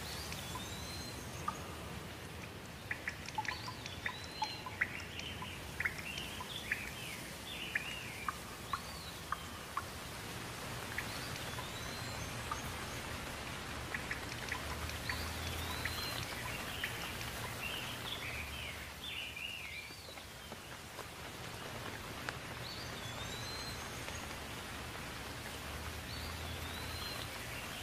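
Steady rain falling, with birds chirping and calling again and again over it. A scatter of sharp ticks sounds in the first third or so.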